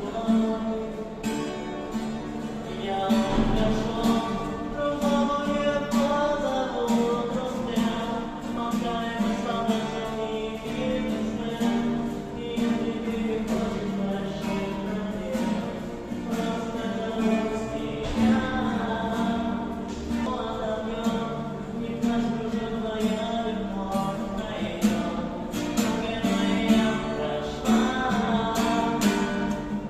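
A live singer performing a song over a strummed acoustic guitar.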